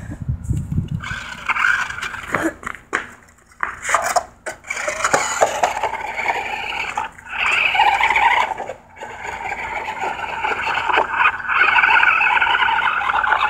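Toy RC car's small electric motor whirring in uneven spurts as it drives on gravel, with scraping and clicking.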